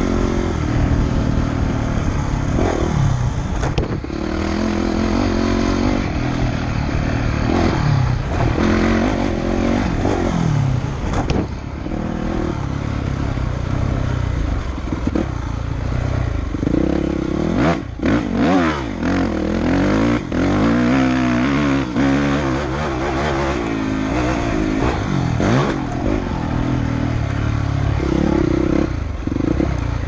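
Dirt bike engine revving up and down as it is ridden along a dirt track, its pitch rising and falling again and again with throttle and gear changes. A few sharp knocks and rattles come about eighteen seconds in.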